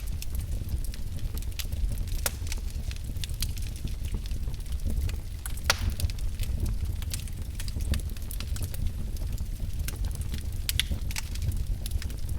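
Wood fire burning in a fireplace: a steady low rumble of flames with irregular crackles and pops of burning logs, one louder snap a little before the middle.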